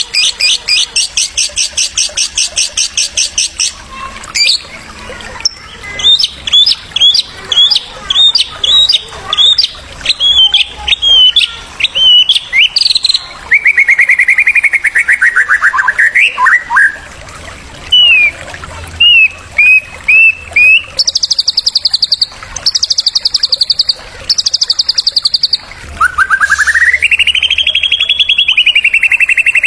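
Songbird song played as a training recording to stir a white-rumped shama into singing. A fast rattling trill opens it, followed by a run of quick upswept notes, a long wavering whistle that falls away, short chips, three buzzy trills and then a long rising whistle near the end.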